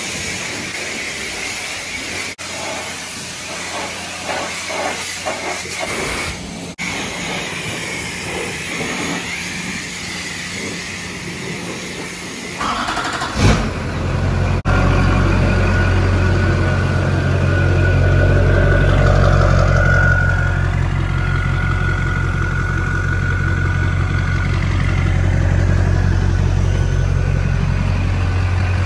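High-pressure car-wash wand spraying soap with a steady hiss for about the first twelve seconds. Then, about thirteen seconds in, the pickup's Duramax 6.6-litre V8 turbo-diesel starts and keeps running with a steady low drone.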